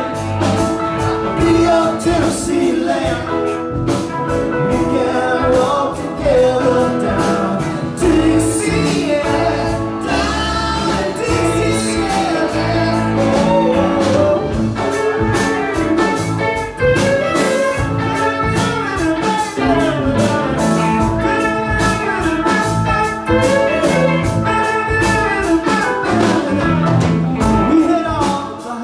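Live band playing a song, with electric guitars, Hammond organ and drums, and vocals over the top.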